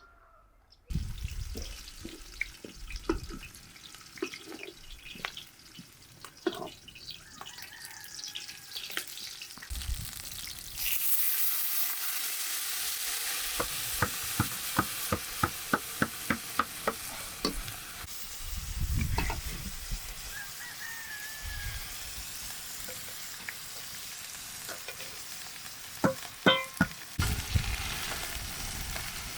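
Food frying in hot oil in a cooking pot: a sizzle that grows loud about a third of the way in, with a stirring utensil knocking against the pot in a quick, regular run of strokes around the middle and again near the end.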